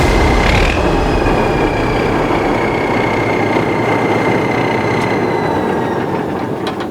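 Heavy machinery running with a loud rattle and a high squeal that slowly falls in pitch, fading near the end.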